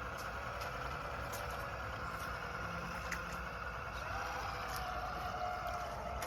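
Electric motor and geartrain of an RC rock crawler whining as it drives, with a tone that rises about four seconds in as the throttle opens. Faint scattered ticks are heard.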